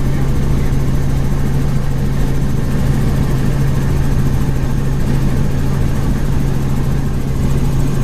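Helicopter in flight, heard from inside the cabin: a steady, loud drone of engine and rotor with a constant low hum.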